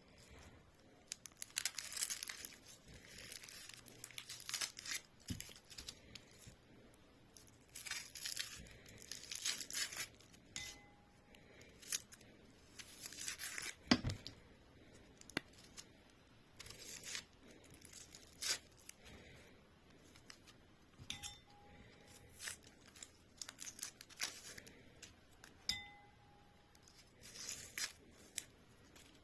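Crinkly material being torn and handled in short, irregular bursts, with a few light ringing clinks.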